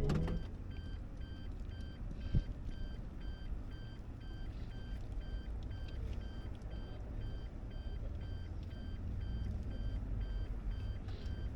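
A vehicle's reversing alarm beeping evenly, about two beeps a second, over a low engine rumble as a car or truck backs up. There is a single short knock about two seconds in.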